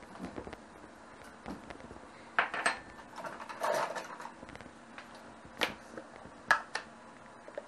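Kitchen utensils clinking and knocking against dishes and a pan in a run of separate clinks, with a brief scrape near the middle. The loudest knocks come about two and a half, five and a half and six and a half seconds in.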